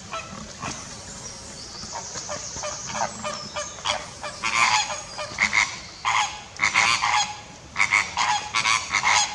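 Greater flamingos honking: short goose-like calls in quick clusters, sparse at first and growing louder and more frequent from about halfway through.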